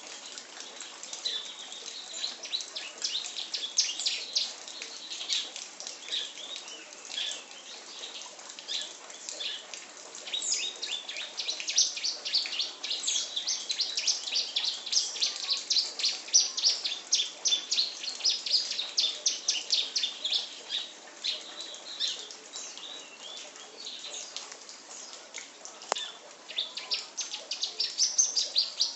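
A songbird singing a long, fast run of sharp chirps and trills, busiest in the middle and again near the end.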